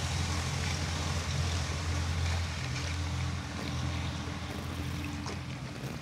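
A stick stirring slaked lime and copper sulphate (blue vitriol) into water in a plastic bucket, the liquid sloshing. Under it runs a steady low motor-like hum.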